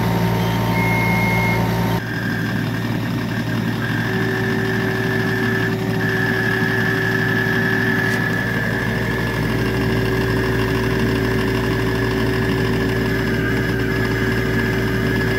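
Kubota U25 mini excavator's diesel engine running steadily under hydraulic load, with a steady high whine, as its hydraulic drive head turns a helical pier into the ground.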